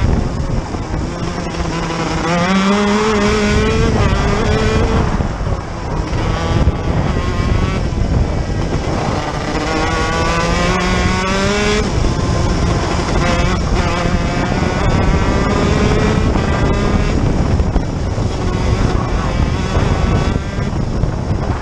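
Birel six-speed shifter kart's two-stroke engine at racing speed, heard close on board. The engine note climbs in two long pulls, each ending in a sudden drop, and keeps rising and falling as the kart accelerates and slows through the corners.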